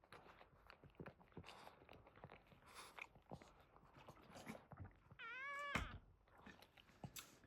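A newborn Boston Terrier puppy gives one short, high, mewing squeal about five seconds in. Faint scattered clicks and rustles run under it.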